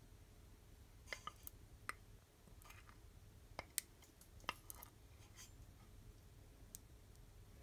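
A metal tablespoon scraping golden syrup out of a ceramic dish into a steel saucepan, giving a dozen or so faint, sharp clicks and taps scattered over several seconds, against near silence.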